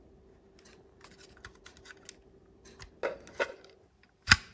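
Small clicks and scratches of a plastic garage door remote case being handled, then a single sharp click near the end as its steel visor clip is pushed onto the back of the case.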